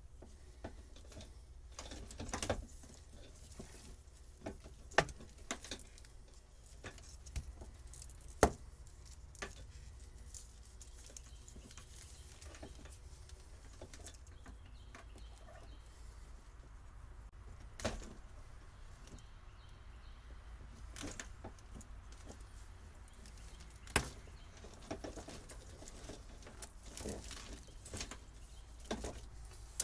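Hands working old boat wiring loose: scattered clicks, taps and rustles, with a few sharper knocks, over a steady low hum.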